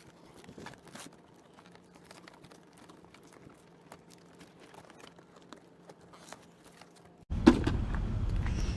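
Faint crinkling and small clicks of cardboard and plastic packaging being handled as a chainsaw's box is opened. About seven seconds in, a much louder low rumbling noise cuts in abruptly.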